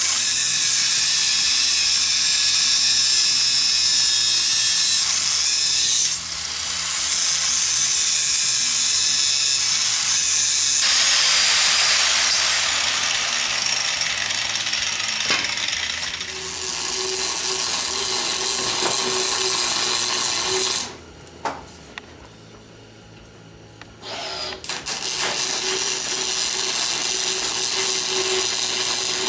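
Power tool cutting into the go-kart's steel frame, running in long stretches with a brief break about 6 s in and a pause about 21 s in before it starts again.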